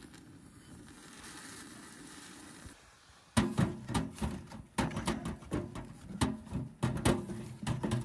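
A lit match burns against the kindling with a faint steady hiss, then split firewood knocks and clatters repeatedly as logs are stacked into a small metal wood stove's firebox, starting about three seconds in.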